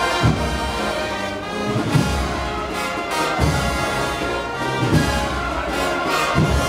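Andalusian processional band (agrupación musical) of trumpets, trombones and drums playing a march, with a bass drum beat about every second and a half.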